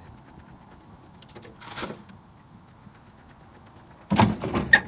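Mostly quiet, then about four seconds in a loud clatter and knocking of junk being handled at the back of a pickup truck being unloaded.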